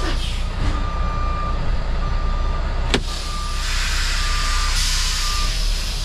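Truck reversing alarm beeping about once a second over a semi-truck's idling diesel engine, with a sharp click about three seconds in followed by a hiss lasting a couple of seconds.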